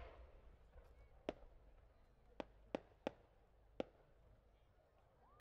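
A single competition firework shell: five small, sharp pops spaced out over a few seconds as the small 'rising flower' bursts on its climbing tail go off, then a loud bang right at the end as the main shell bursts.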